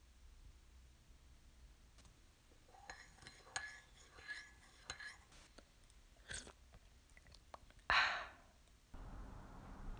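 A metal teaspoon stirring tea in a ceramic cup, clinking against the sides several times with a brief ringing tone. About eight seconds in comes a loud slurping sip from the cup, and then a steady low background hum begins.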